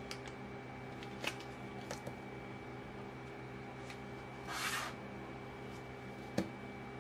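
Small album items being set down on a table: a few light taps and clicks, and a brief rustle of a plastic packet about four and a half seconds in, over a steady low hum.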